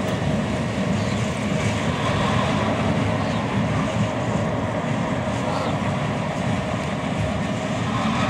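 EMD GP38-2 diesel-electric locomotive running steadily under load as it shoves a short string of freight cars through the yard, its two-stroke V16 engine drone mixed with rolling wheel noise.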